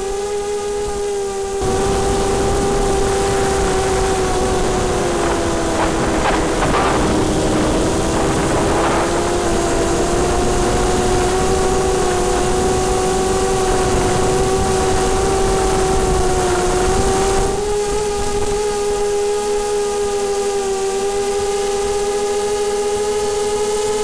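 Small multirotor drone's electric motors and propellers whining at a steady pitch. The pitch dips a little several seconds in and climbs back, and a rushing noise rides over it from about two seconds in until near the end, when it drops away.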